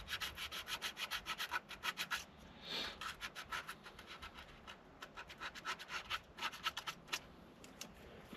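Fine sandpaper rubbed by hand back and forth over a steering wheel rim, in quick runs of short strokes, about eight a second, with brief pauses between runs.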